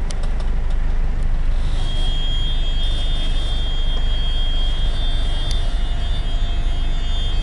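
Steady low engine and road rumble heard from inside a vehicle cabin in slow traffic, with a thin, steady high-pitched whine joining about two seconds in.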